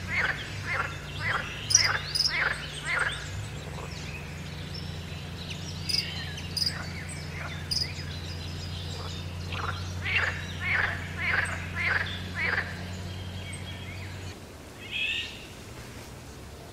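Pond frogs croaking in rapid series of short calls, about three a second, in two bouts: one at the start and one about ten seconds in. Brief high chirps sound between them, and a low steady hum runs until near the end.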